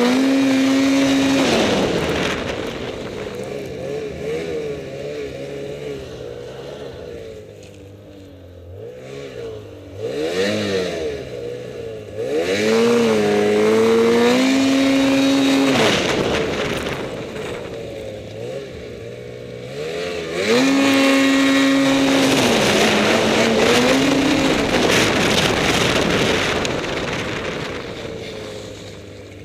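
2013 Ski-Doo Summit X 800R E-TEC snowmobile's two-stroke twin engine revving hard and dropping back as the throttle is opened and released. It is held high at the start, again about halfway through and twice more about two-thirds through, then fades toward the end.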